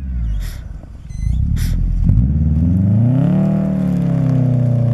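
Subaru Forester's flat-four engine revving up and easing back to a steady speed as its wheels spin in deep snow, with the car stuck. There is low rumbling and two brief rushes of noise before the rev.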